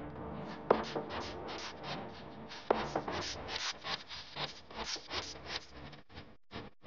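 Quiet background music track made of a quick run of short, scratchy percussive strokes, with two sharp clicks, one about a second in and one near three seconds in.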